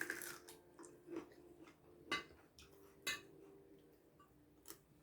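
A few faint clicks and taps of cutlery and dishes at a meal table, about five spread over a few seconds, over a faint steady hum.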